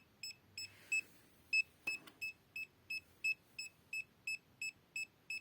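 Handheld EMF meter beeping in short, high, even pips, about three a second: its alarm set off by the field from a switched-on USB AC/DC power adapter.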